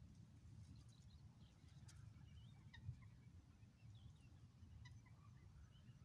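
Faint, scattered short chirping calls of birds in a reed marsh, over a low steady rumble, with one soft thump about halfway through.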